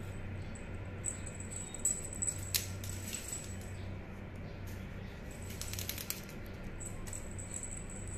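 Small jingle bell on a cat wand toy jingling on and off as a kitten bats at it, with a few sharp clicks about two seconds in and a quick run of ticks around six seconds. A steady low hum runs underneath.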